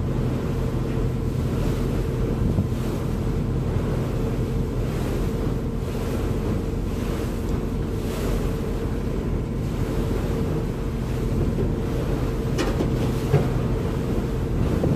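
Commuter river ferry under way: its engines give a steady low drone with a constant hum, mixed with wind on the microphone and rushing water. Two brief clicks near the end.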